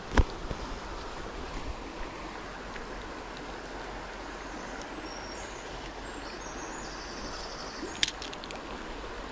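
Steady rush of a shallow, rocky river flowing past. A sharp click comes just after the start and another about eight seconds in, as a hand goes to the spinning reel.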